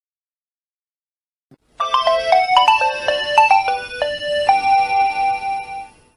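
Mobile phone ringtone: a short melody of quick stepping notes, starting about two seconds in and ending on one long held note.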